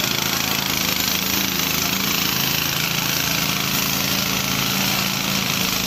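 Small engine running steadily, driving the pump on a water tanker, with a steady hiss of water jetting from the hose onto the road.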